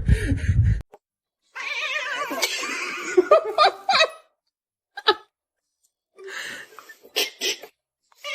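A cat's wavering, drawn-out calls, in several short bursts separated by abrupt silent gaps.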